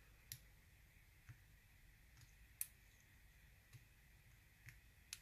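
Faint, sparse metallic clicks of a hook pick working the pin stack in a Sparrows Revolver practice lock, about six over five seconds, the loudest about two and a half seconds in: pins being lifted and set while single-pin picking.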